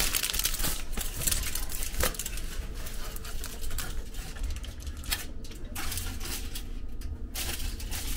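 Aluminium foil crinkling and crackling as it is laid over a metal loaf pan of bread, with light clinks of metal on metal and one sharp click about two seconds in.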